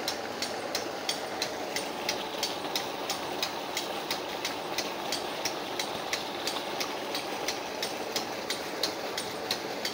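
An engine running steadily, with a sharp, regular tick about two and a half times a second.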